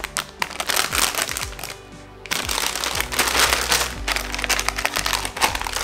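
Background music, with crinkling and crackling of the plastic bags around a Gunpla kit's runner sheets as they are handled.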